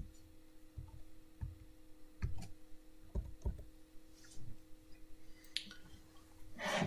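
Computer keyboard typing: a handful of irregular soft clicks and dull thumps spaced a fraction of a second to a second apart, over a faint steady hum.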